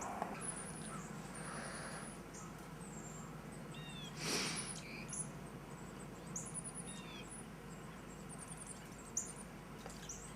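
Small birds calling: series of quick, very high, thin chirps and a few short down-slurred whistles, over a steady low hum. A brief hissing whoosh rises and fades a little over four seconds in.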